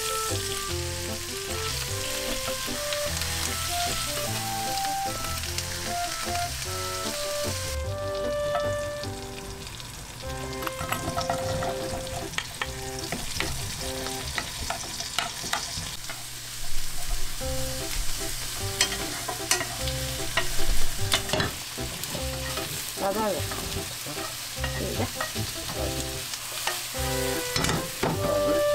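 Flour-dredged chicken pieces sizzling gently in oil in a nonstick frying pan, a steady hiss. About 8 seconds in the hiss drops away and a wooden spoon stirs and scrapes mushrooms, carrots and onion sautéing in butter, with irregular clicks and knocks of utensils against the pan, including chopsticks turning the chicken near the end.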